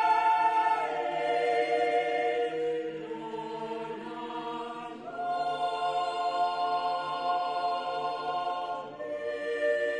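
Mixed chamber choir singing unaccompanied: long held chords that shift every few seconds, dropping softer for a couple of seconds in the middle before swelling again.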